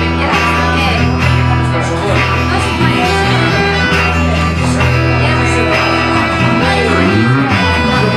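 Guitar and violin playing a tune together, with a man singing; a note slides up and back down near the end.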